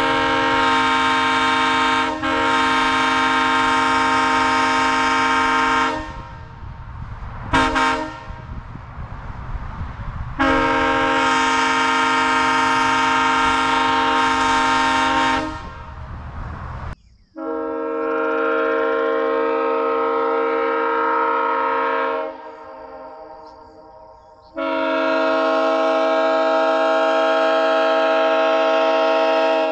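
Nathan Airchime K3LP three-chime train horn (bells 1L, 1 and 3B, voiced to imitate an S3L) sounding its chord on air. It gives one long blast of about six seconds, a short toot, then three more long blasts of about five seconds each. A low rumble under the first blasts cuts off suddenly about halfway through.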